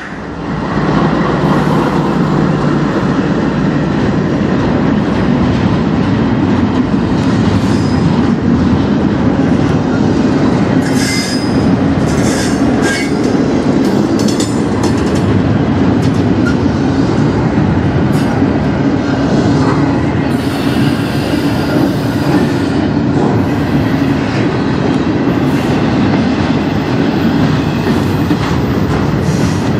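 CN double-stack intermodal freight train rolling past at close range. A loud, steady rumble of wheels on rail, with clicks over the rail joints and brief high wheel squeals about a third and two-thirds of the way through.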